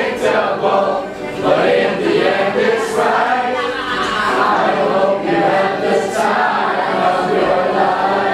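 Choir singing, held notes in a group of voices over music.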